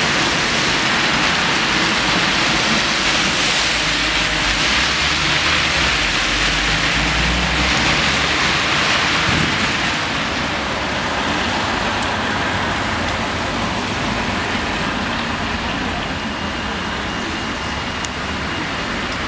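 Traffic on a rain-soaked road: tyres hissing through standing water as vehicles pass, with a low engine rumble in the middle. After about ten seconds the hiss eases into a quieter, lower traffic noise.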